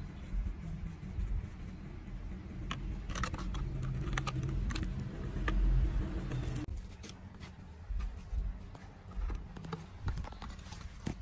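Handling sounds of garden tools worked by hand: small clicks, taps and scrapes over a steady low rumble. About two-thirds of the way in the rumble drops away and the clicks become sharper.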